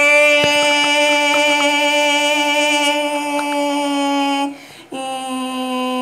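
A voice holding a long, steady droning note for about four and a half seconds, then after a short break a second, slightly lower note that sags a little: a mouth imitation of an airplane's jet engines at takeoff.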